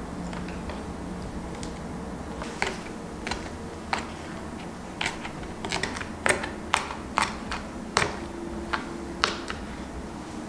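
Shishito peppers having their stems snapped off on a wooden cutting board: about a dozen sharp, crisp snaps at an irregular pace, starting a couple of seconds in.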